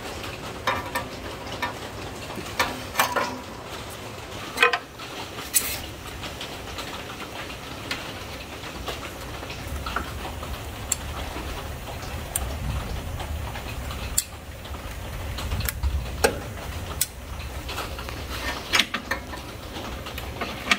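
Scattered clicks and small metallic knocks of hands and pliers working hose clamps and fuel-line fittings back onto a mower engine, over a steady background hiss, with a low rumble for several seconds in the middle.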